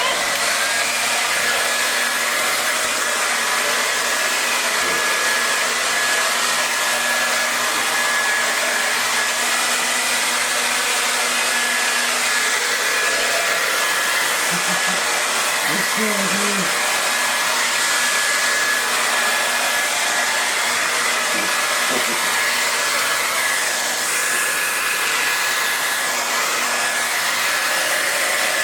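Handheld hair dryer running steadily on a blow setting, an even rushing noise with a steady whine over it.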